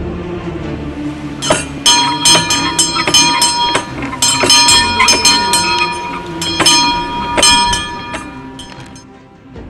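Small bell hung in a tall wooden post, rung by pulling its rope: the clapper strikes about two or three times a second for several seconds, each ring hanging on into the next. It starts about a second and a half in and dies away near the end.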